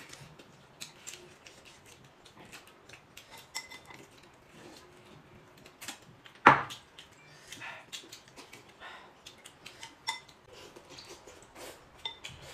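Tableware clinking during a meal: a string of light clicks and taps of utensils against bowls, with one loud knock about six and a half seconds in.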